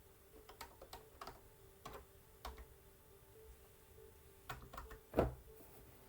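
About ten faint, irregular clicks and taps, like keys or buttons being pressed, with a louder tap about five seconds in, over a faint steady hum.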